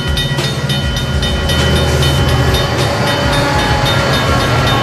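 BNSF diesel-electric freight locomotives passing close, their engines running with a strong low rumble and steady high-pitched tones above it. A quick run of wheel clicks on the rails is heard in the first half-second.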